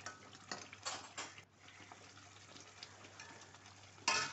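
A spoon tapping and scraping in a pan of simmering gravy: a few light clicks in the first second or so, then one louder clatter near the end.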